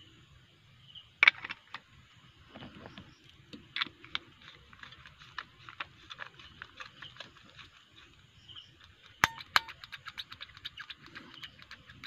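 Clicks, taps and knocks of a metal diving flashlight being put together with a battery, then two sharp clicks about nine seconds in followed by a quick run of light ticks as it is tested.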